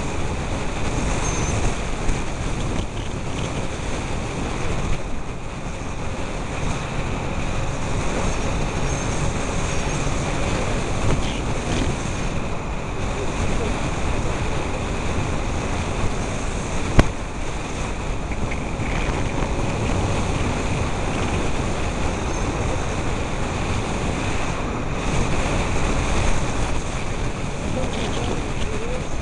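Wind rushing over the microphone of a motorcycle-mounted camera while riding, with the motorcycle's running engine mixed into the steady noise. One sharp click a little past halfway.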